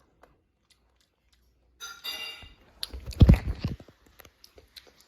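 A child biting into a pancake and chewing it close to the microphone, with small mouth clicks. A short pitched voice sound comes a little before the first bite, and the loudest moment, a heavy thump, comes around the middle.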